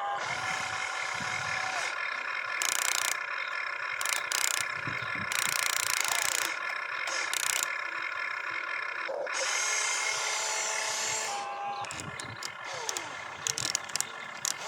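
Small electric motors and gearboxes of radio-controlled construction toys whining steadily, with several stretches of louder hiss and a run of sharp clicks near the end.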